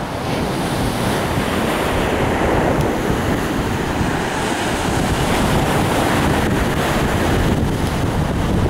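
Ocean waves washing and breaking against rock ledges, a steady surf noise, with wind buffeting the microphone.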